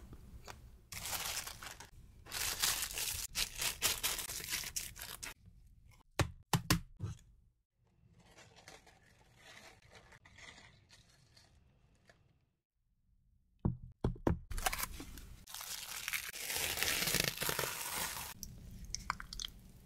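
Plastic film rustling and crinkling in two long stretches, with a few sharp clicks from a small plastic bowl being handled in between.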